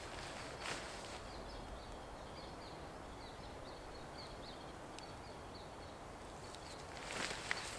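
Woodland ambience with a bird giving a quick run of short, high chirps. Footsteps begin rustling near the end.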